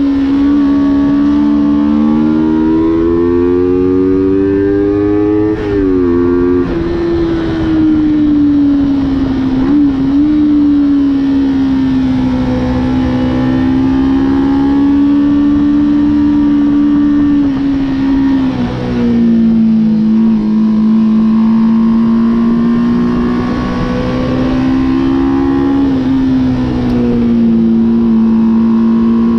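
Motorcycle engine heard onboard at track speed, its pitch swelling and easing gently with the throttle through the corners. It has a few sudden steps in pitch, near a fifth of the way in, about two-thirds through and again near the end.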